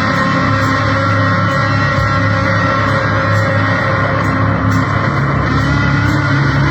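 Loud, dense distorted electric-guitar noise music, a continuous wall of sound with long sustained tones and no breaks.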